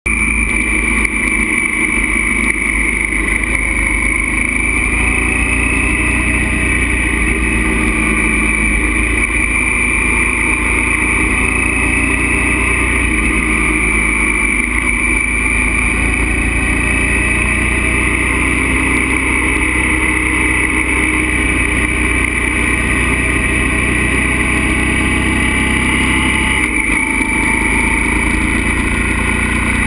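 Motorcycle engine running at road speed, picked up on the bike itself, mixed with steady wind rush; the engine note rises and falls with the throttle through the bends, with a brief drop near the end.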